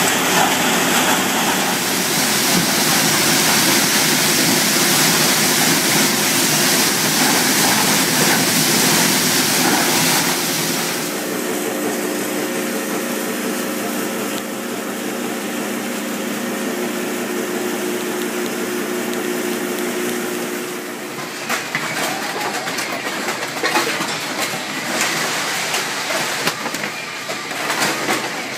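Recycling separation machinery running: magnetic conveyors and an eddy current separator carrying crushed material and flakes, with a steady mechanical hiss and hum. About a third of the way in the sound turns to a steadier motor hum with less hiss. About two-thirds of the way in it turns to an irregular clatter of mixed scrap on a belt.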